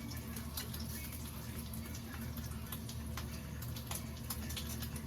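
Bacon frying in a pan: a steady sizzle with irregular sharp pops of spitting fat, over a steady low hum.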